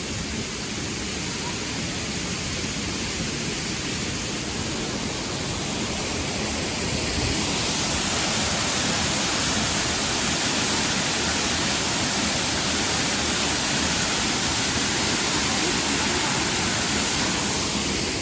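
River water rushing steadily, growing louder and brighter about seven seconds in.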